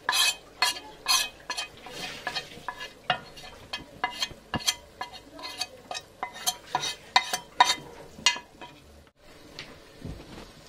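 A metal spoon scraping and tapping spice powders off a steel plate into an aluminium cooking pot: a quick, irregular run of sharp clinks and scrapes, with a short lull near the end.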